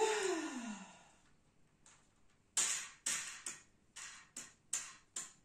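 Wooden embroidery floor frame being handled and adjusted. It opens with a short sound falling in pitch, then about halfway through comes a run of quick sharp clicks and scrapes, roughly three a second.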